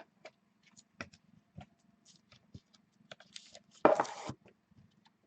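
Trading cards being handled: scattered light taps and clicks, then a brief rustle of card or plastic sleeve about four seconds in.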